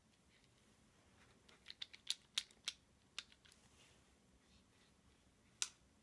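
Sharp clicks and taps from handling a DANIU automatic wire stripper: a quick run of about eight clicks around two to three seconds in, then one more click near the end.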